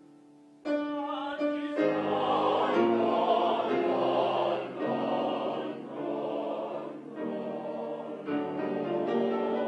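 A mixed chorus of men's and women's voices singing held chords. The voices come in suddenly under a second in, after a soft fading chord, and the chords change about once a second.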